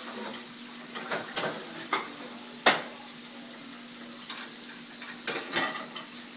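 Boxer dog licking leftovers off dirty dishes: wet licking with irregular clinks and knocks of the dishes, the loudest about two and a half seconds in.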